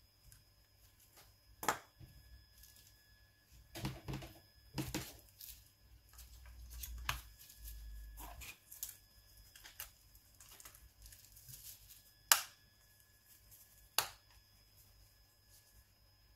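Small handling sounds of a Nokia N93 phone being worked on over bubble wrap: scattered sharp clicks and taps of its plastic and metal casing, with a burst of crinkly rustling around four to five seconds in and two loud clicks near the end.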